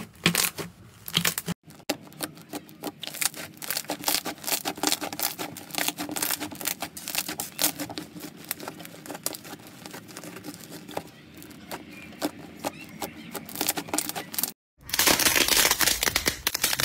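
Hands squeezing, pressing and stretching slime: a steady stream of small sticky crackles and pops. The sound breaks off briefly twice, and near the end the crackling turns louder and denser.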